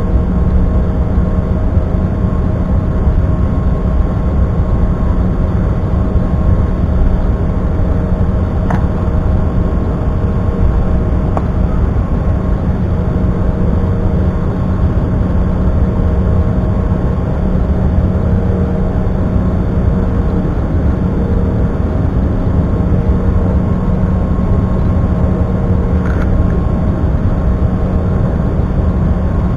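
Cabin noise of an Embraer regional jet taxiing with its turbofan engines at low taxi power: a steady rumble with a few held engine tones, heard inside the cabin. Two faint clicks come through, one about nine seconds in and one near the end.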